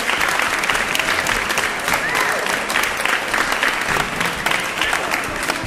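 Audience applauding at the end of a live folk music performance, dense clapping with a few voices calling out, slowly dying down toward the end.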